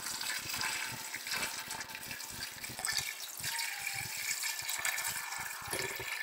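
Water pouring in a steady stream from a kettle into an aluminium pressure cooker, splashing first onto the solid beans and sausage, then into the rising liquid as the pot fills.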